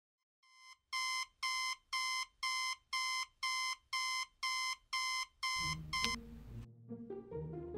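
Digital alarm clock beeping about twice a second, short high beeps that cut off suddenly about six seconds in. Low music comes in underneath toward the end.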